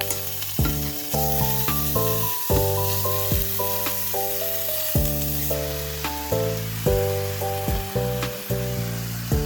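Food sizzling and frying in a pan, a steady hiss under background music with held notes and a regular beat.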